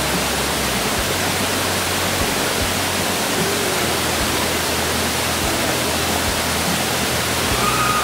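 A waterfall cascading over rock, giving a steady, unbroken rush of falling water. Background music runs faintly underneath.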